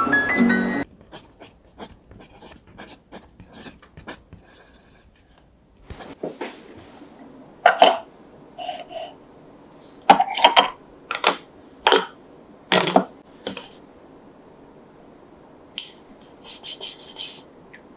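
Hard plastic cup and its snap-on lid handled on a wooden cutting board: a series of sharp knocks and clacks as the cup is set down and the lid is worked off, then a quick scratchy rubbing of plastic near the end. Background music ends just after the start.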